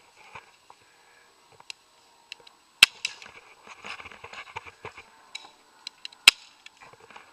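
Two sharp airsoft gun shots, about three and a half seconds apart, with smaller clicks and rustling in between.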